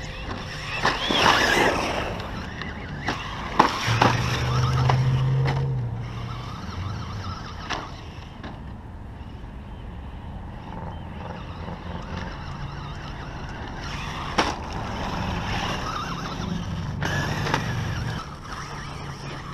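Traxxas Slash 2WD RC short-course truck with a Castle 5600kv brushless motor driving and jumping on loose dirt. Motor whine and tyres scrabbling come in bursts near the start, about four seconds in, and again in the last third, with a few sharp knocks as it lands.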